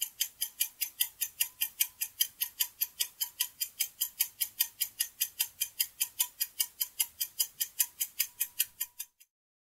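Ticking-clock sound effect of a quiz countdown timer, an even run of sharp ticks about five a second, marking the seconds left to answer. It cuts off suddenly about nine seconds in as the countdown ends.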